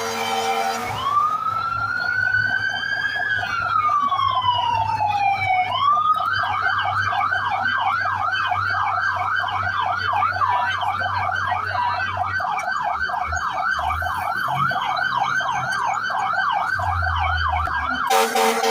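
Fire truck's electronic siren: one slow wail rising then falling, then switching to a fast yelp of about two to three sweeps a second, which cuts off suddenly near the end.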